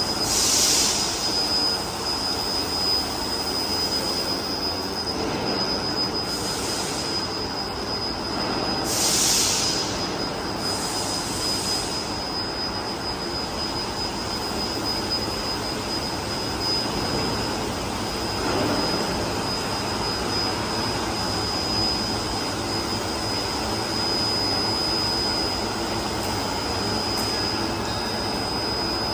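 Welding equipment running steadily: an even roar and hiss with a constant high-pitched whine, and brief surges of brighter hiss just after the start and about nine seconds in.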